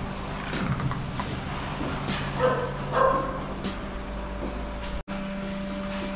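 A few short animal calls, the loudest two about halfway through, over a steady mechanical hum.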